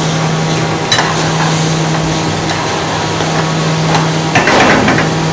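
Metal ladle stirring daal mash in a frying pan over a high gas flame: the food sizzles while the ladle scrapes and knocks on the pan, with sharper clinks about a second in and again near the end. A steady low hum runs underneath.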